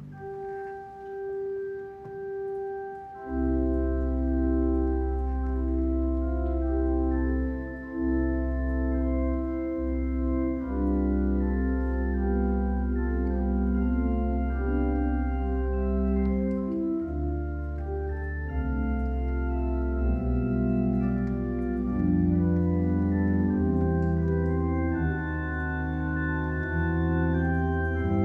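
Two-manual church organ with pedalboard playing a slow piece in long held chords. A deep pedal bass comes in about three seconds in.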